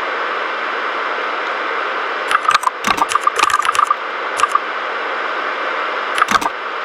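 Mechanical keyboard with red (linear) switches being typed on: a quick run of key clicks a couple of seconds in, a single keystroke, then a short burst near the end, over a steady hiss.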